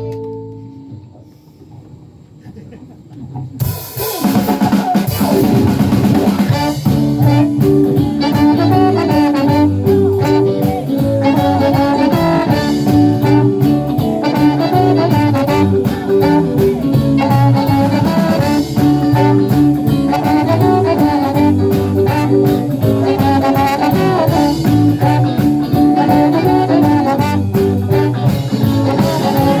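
Live band music: a held chord dies away in the first second, then after a short lull the band comes in about four seconds in with drum kit and brass, playing an upbeat jazz-style number.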